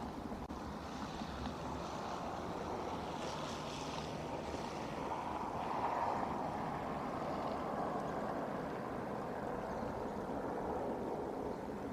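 Wind rushing through the trees and over the microphone: a steady noise that swells a little about halfway through.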